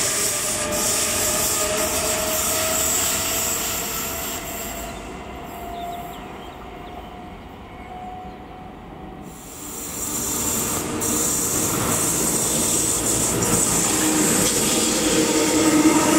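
A locomotive-hauled red double-deck regional train pulling away, its electric motor whine rising slightly in pitch as it fades over the first few seconds. From about ten seconds in, a container freight train approaches and passes close, its rail and wheel noise growing to the loudest point near the end.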